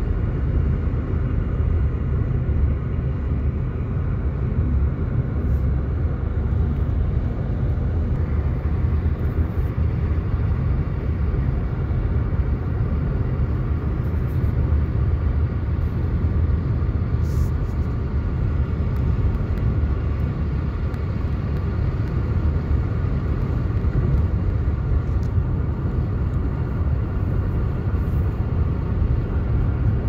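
Steady low road and engine rumble heard from inside a moving car.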